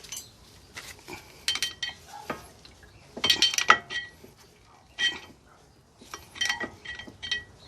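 Metal-on-metal clinks and rattles of brake parts and a tool being handled at a disc brake caliper, in several short bunches with a brief ringing after the sharper knocks.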